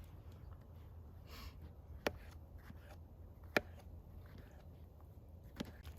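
Two sharp taps about a second and a half apart over a low steady rumble, with a faint rustle before them.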